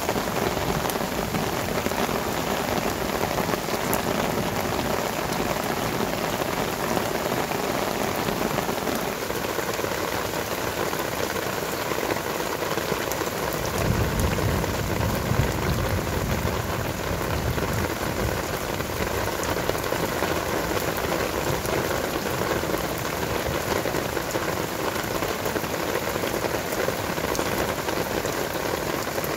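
Sudden rain shower falling steadily, a dense even hiss of raindrops on surfaces, with a low rumble for a few seconds about halfway through.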